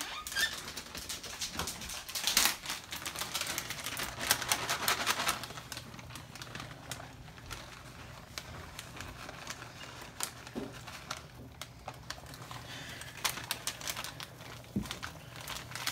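Rustling and crinkling of plastic food packaging handled by hand, with quick clicks and taps. It is busiest in the first five seconds, then thins to scattered clicks over a low steady hum.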